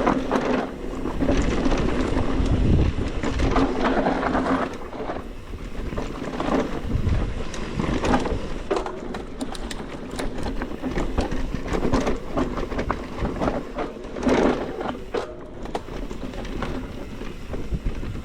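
Mountain bike riding down a loose dirt trail: tyres running over dirt, and the bike clicking and rattling over bumps, with wind rumbling on the microphone.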